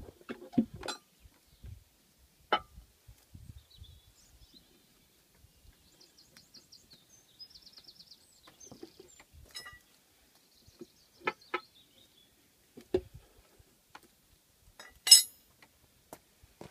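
Scattered clinks and knocks of steel tyre levers against a motorcycle wheel rim and tyre as the bead is levered off, the loudest a sharp clink near the end. Birds chirp briefly in the background midway.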